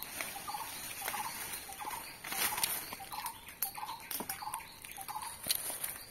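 Footsteps crunching through dry leaf litter, with irregular snaps and crackles of twigs and leaves, under the steps of someone carrying a heavy dead branch. A short, high note repeats roughly every second in the background.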